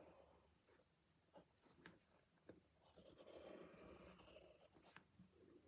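Faint scratching of a drawing tool on paper, a few short strokes about three seconds in, with a few light ticks; otherwise near silence.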